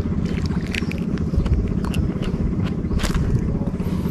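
A small engine running steadily, with light clicks and scrapes from hands working bait onto a fishing hook.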